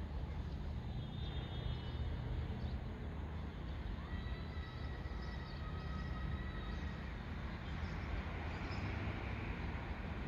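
Steady low outdoor rumble, with faint thin high tones that come in about four seconds in and fade after a few seconds.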